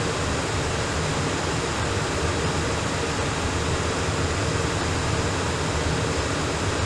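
Steady hiss and low hum of an air traffic control radio feed between transmissions, with no voices.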